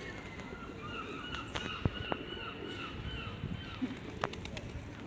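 A flock of birds at a feeding spot, pigeons among them. A rapid run of short repeated chirps lasts for about the first three seconds, with scattered sharp taps and clicks among it.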